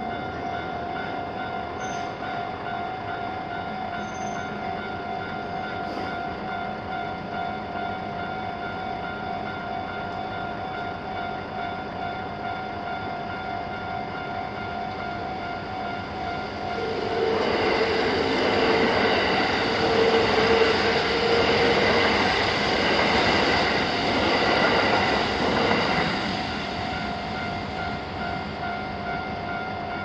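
Japanese railroad-crossing alarm bells ringing steadily, two warning sounds mixed together, one a little faster than the other. About seventeen seconds in, a Kintetsu train passes through the crossing, and its running noise swells over the bells for about nine seconds before the bells are left ringing alone.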